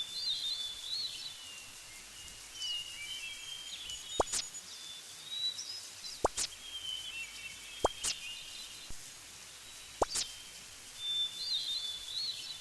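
A small songbird singing short, high warbling phrases over and over, with a sharp click about every two seconds over a quiet outdoor background.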